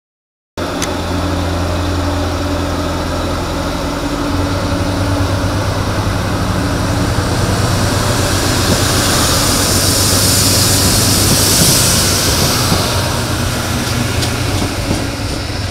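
Adelaide Metro 3000-class diesel railcars idling at a station, with a steady low engine hum. A rushing hiss builds over it and is loudest about two-thirds of the way through. The sound starts after a brief moment of silence.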